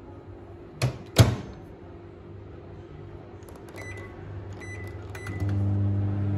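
Samsung microwave oven door shut with two sharp clacks about a second in, then three keypad beeps as the buttons are pressed. The oven starts up with a steady low hum near the end.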